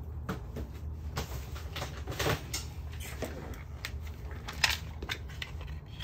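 Scattered small clicks and taps from hands handling small electronic parts, over a steady low hum.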